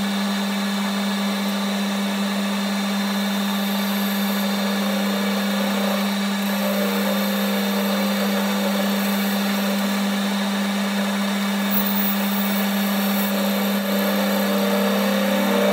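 Boxford metal lathe running at a steady speed while a tool turns down an aluminium block held in a four-jaw chuck. A steady, even hum with no change in speed or pitch.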